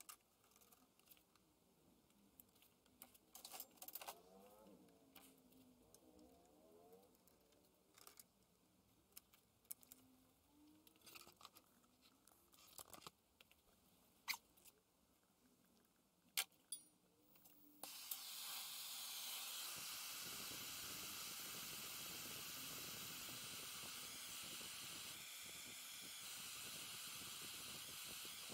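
Scattered faint clicks and knocks of plastic pipe fittings being handled. About two-thirds of the way in, a gas brazing torch starts abruptly and hisses steadily as it heats a copper tube joint for hard soldering.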